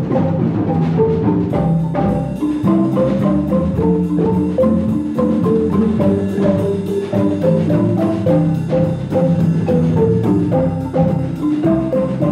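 A marimba ensemble playing together: several wooden marimbas struck with mallets in a fast, steady rhythm, with repeating melodic figures over low notes.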